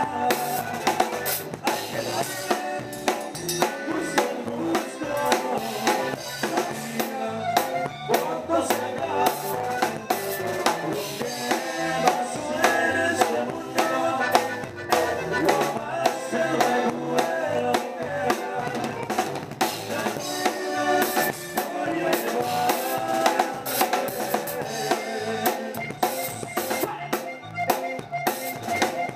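Live band music: a drum kit played throughout, with snare hits, rimshots, kick drum and cymbals over the band's pitched instruments.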